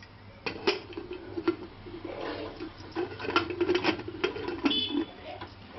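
Aluminium pressure-cooker lid being fitted and turned shut on the pot: repeated metal clicks and a grating scrape of the lid's rim against the pot, starting about half a second in.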